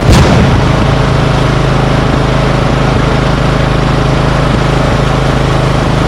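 An engine starts loud and sudden at the very beginning, then runs steadily at idle with an even, low hum.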